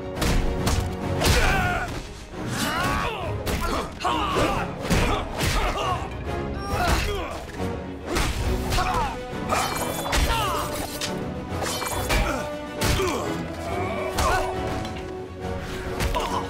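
Fight sound effects over action music: a rapid run of punches and blows landing as thuds, whacks and crashes.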